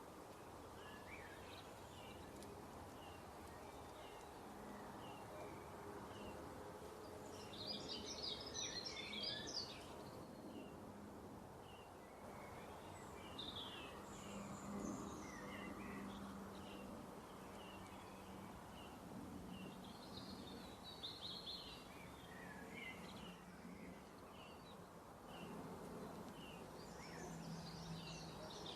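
Faint chirping of small birds, short high calls repeating throughout with a few busier flurries, over a steady low hum.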